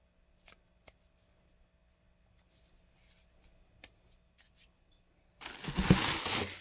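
A few faint clicks and handling rustles, then about five seconds in a loud tearing as the shipping box's packaging is ripped open.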